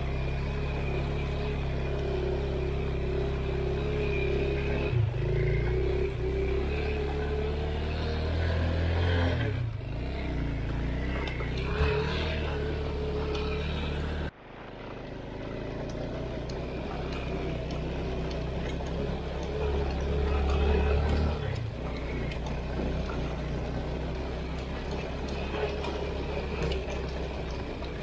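All-wheel-drive off-road motorcycle's engine running under load on a rutted dirt track, its note rising and falling with the throttle. The sound breaks off suddenly about halfway through and then builds back up.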